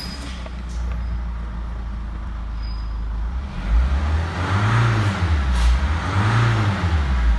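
Mitsubishi Space Star's 1.9 turbodiesel F9Q four-cylinder engine idling steadily just after starting. About three and a half seconds in it is revved twice, the pitch rising and falling each time, up to about 2000 rpm.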